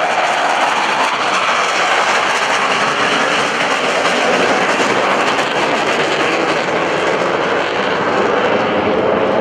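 Loud, steady jet noise from an F/A-18 Hornet's twin turbofan engines as the fighter flies past and climbs away.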